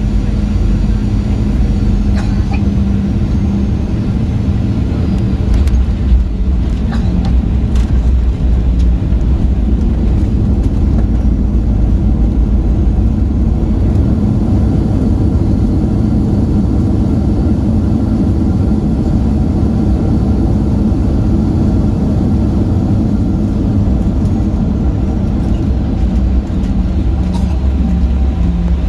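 Steady, loud low rumble inside a Boeing 737-800 cabin: engine and airflow noise around landing, with a brief knock about six seconds in.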